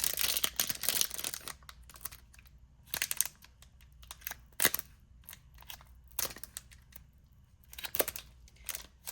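Foil wrapper of a Pokémon booster pack crinkling as it is worked open by hand: a dense rustle for about the first second and a half, then scattered crackles and ticks.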